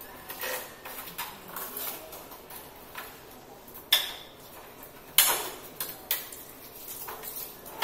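Scattered sharp clicks and knocks from hands working on the plastic body of a new HP DesignJet T520 wide-format printer while its orange packing tape is pulled off. The loudest knocks come about four, five and six seconds in.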